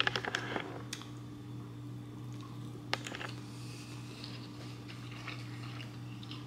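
A steady low hum with a few faint small clicks and taps, the sharpest about three seconds in.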